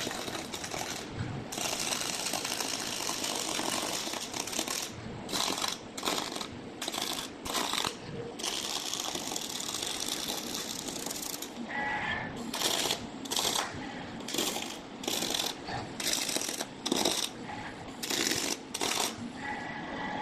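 Robotic arc welding: the arc crackles and hisses in a few longer continuous welds and many short bursts of stitch welding, stopping and restarting every second or so.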